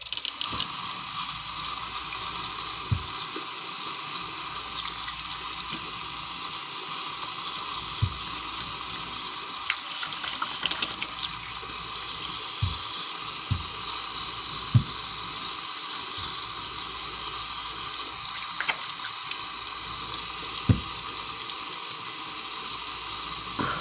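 Bathroom sink tap running steadily while a face is rinsed under it, with a few low knocks along the way.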